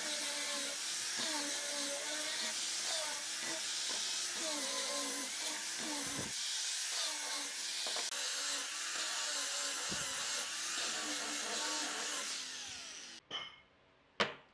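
Handheld power sander with a round sanding disc running against pine, its motor pitch wavering as the disc bears on the wood. It stops about a second before the end, followed by a few sharp knocks of wood on the bench.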